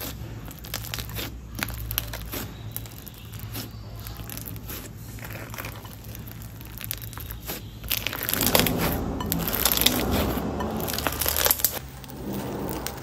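Slime mixed with foam being squished and kneaded by hand: sticky crackling and popping clicks, louder and denser for a few seconds in the second half.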